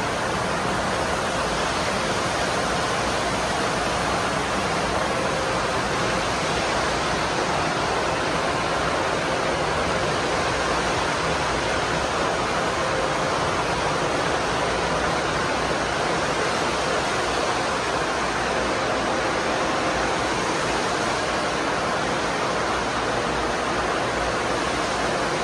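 Tunnel car wash running: spinning wash brushes and water spray scrubbing a car on the conveyor, a steady rushing noise with a faint steady machine hum beneath it.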